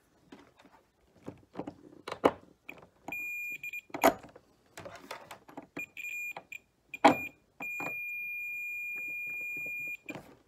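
A digital multimeter's continuity beeper sounds as the test probes touch the outer shells of the coax cable's connectors. The high beep comes in short stuttering bursts as the probe contact makes and breaks, then holds steady for about two and a half seconds near the end, showing that the shield is continuous from end to end. Metal probe tips click and scrape on the connectors.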